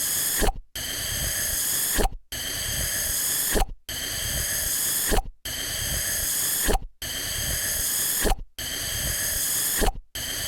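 Suction cup sound effect repeated over and over: a steady hiss that ends in a sharp pop, then a brief silence, about every second and a half, seven times.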